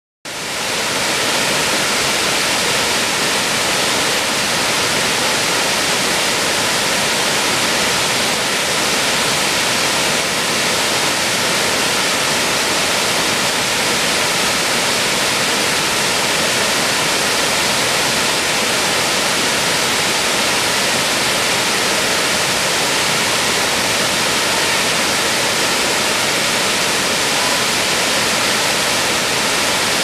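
Wide cascading waterfall rushing over rock: a steady, even rush of falling white water, fading up over the first second and then unchanging.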